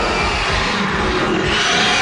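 Dense rasping, hissing noise from a pack of small cartoon dragons, a TV soundtrack sound effect.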